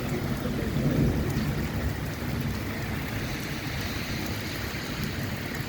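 Steady rain with a low rumble of thunder under it; the rumble is strongest in the first couple of seconds and then eases.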